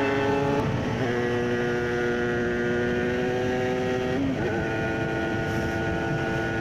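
Cagiva Raptor 125's two-stroke single-cylinder engine running steadily at cruising speed on the road, its note dipping briefly twice, about a second in and about four seconds in.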